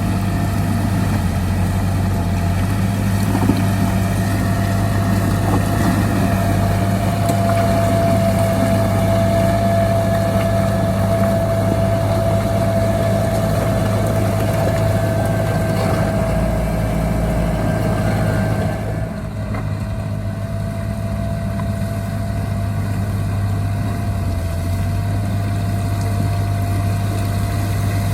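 Heavy diesel earthmoving machinery running steadily: a low engine drone with a steady high whine over it. About two-thirds of the way through the sound turns slightly quieter and duller.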